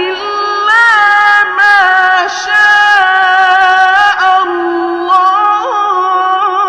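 Quran recitation: a single voice chanting in long, held melodic notes with ornamented turns between them.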